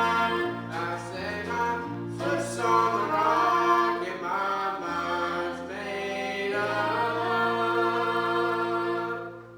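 A vocal group singing gospel harmony in held chords that change every second or two, the singing stopping just before the end.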